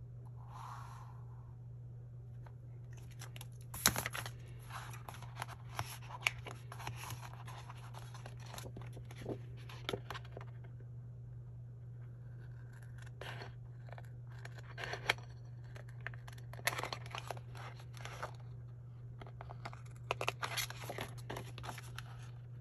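Small scissors cutting through a thin clear plastic divider sheet: runs of short, crisp snips and crackles with pauses between them, over a steady low hum.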